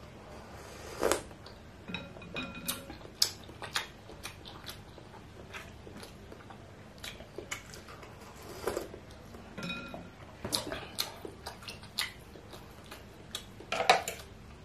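Close-up eating sounds of meatball soup: broth sipped from a plastic soup spoon, chewing, and scattered irregular clicks of spoon and fork against the bowl and plate, the loudest about a second in.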